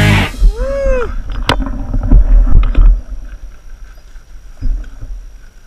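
Low rumble and knocks from a handlebar-mounted camera on a mountain bike on a rough dirt trail, loudest in the first few seconds and then dropping off. Near the start comes a brief tone that rises and falls, and a sharp click follows about a second and a half in.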